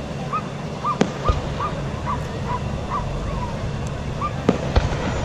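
Fireworks shells bursting overhead: two pairs of sharp bangs, about a second in and again near the end, the second pair the loudest. Between the pairs comes a run of about ten short, high chirping calls, roughly three a second.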